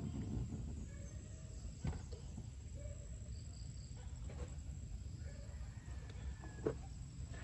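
Quiet outdoor ambience: a steady low rumble with faint bird calls and a few soft clicks.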